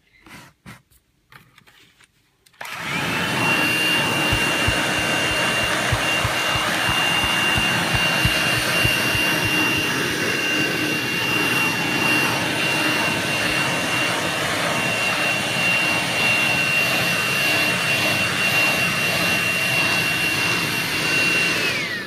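Hoover Jovis battery-powered handheld vacuum cleaner, switched on after a few faint clicks, its motor whine rising quickly to a steady high pitch. It runs steadily through a stairs cleaning test, then spins down with a falling whine near the end.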